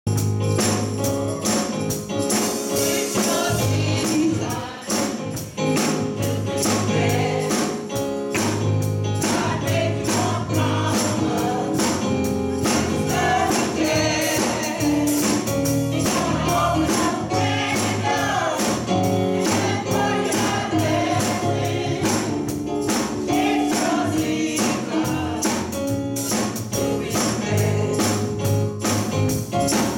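Small gospel choir singing with electronic keyboard and drums, over a steady percussion beat.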